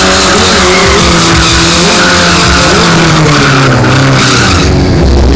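Sport bike's engine held at high revs while the rear tyre spins in a stationary burnout, the tyre screeching against the pavement. The tyre noise drops away near the end while the engine keeps running.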